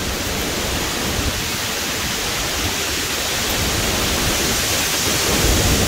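Heavy storm rain and strong wind pouring through the trees in a steady, loud hiss. A low rumble builds near the end.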